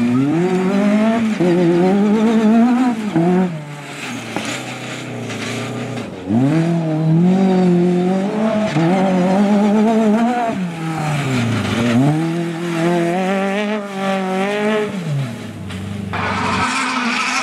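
Off-road rally car's engine driven hard: the revs climb in steps through gear changes, fall away, and climb again several times.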